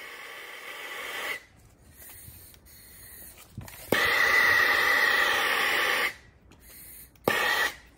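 Handheld gas blowtorch flame hissing as it shrinks heat-shrink tubing on wiring. A moderate hiss for the first second or so, then a loud hiss for about two seconds in the middle, and a brief loud one near the end.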